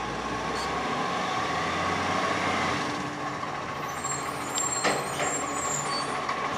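Garbage truck's diesel engine running as the truck drives slowly down the street, with a sharp click about five seconds in.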